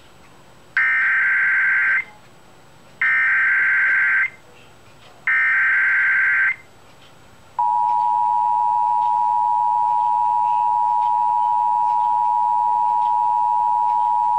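Emergency Alert System header and attention signal on FM radio. It opens with three bursts of SAME digital header data, each just over a second long and about a second apart. About seven and a half seconds in, the steady two-tone EAS attention signal starts and holds.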